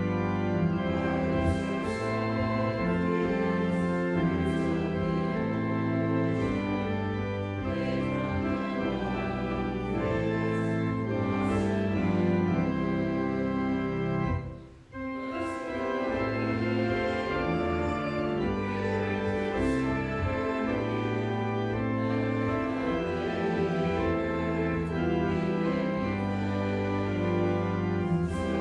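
Organ playing slow, held chords, breaking off briefly about fifteen seconds in before going on.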